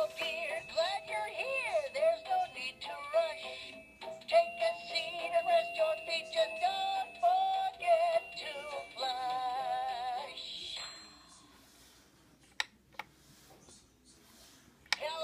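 Hallmark "Deer John" singing reindeer figure playing its recorded song, a singing voice with music. The song stops about eleven seconds in, and a few faint clicks follow.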